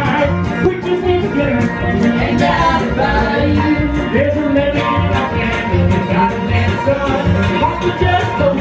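Live bluegrass band playing: fiddle, banjo, mandolin and acoustic guitar over upright bass, with a kick drum keeping a steady beat about twice a second.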